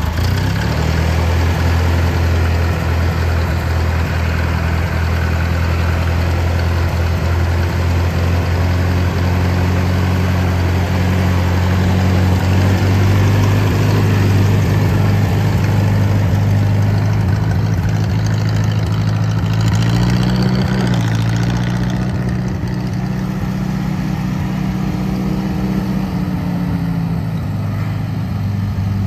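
Ford 2000 tractor engine running steadily just after starting, with a brief rise in its note about two-thirds of the way through.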